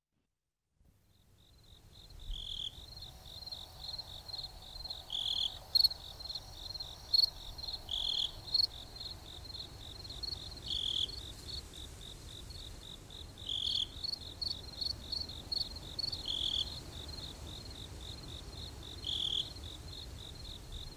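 Crickets trilling steadily in a fast pulsing high trill that begins about two seconds in. A lower chirp repeats about every three seconds, with a few brief sharper chirps above.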